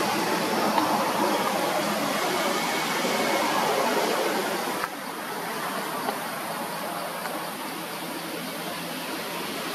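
Steady rushing background noise with no distinct calls, stepping slightly quieter about five seconds in.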